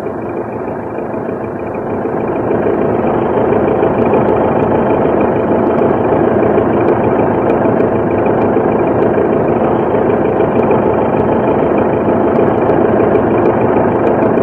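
Piston aircraft engine running steadily, swelling up over the first two or three seconds and then holding level.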